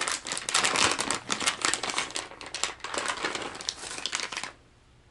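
Plastic lure package crinkling as it is handled and opened, stopping about four and a half seconds in.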